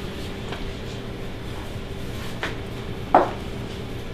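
Egg-noodle dough being pressed and worked into a ball by hand on a work surface: a few soft knocks, then one sharper thump about three seconds in, over a steady low hum.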